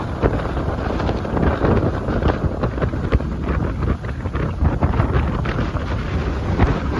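Strong gusty wind of an approaching typhoon buffeting the microphone in a loud, constant rumble, over rough sea.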